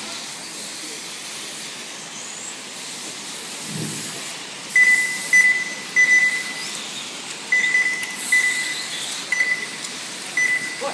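Steady hiss of 1/10-scale electric F1 RC cars running laps on an asphalt track. From about five seconds in, about seven short high electronic beeps, all at one pitch and at uneven intervals, are the loudest sound.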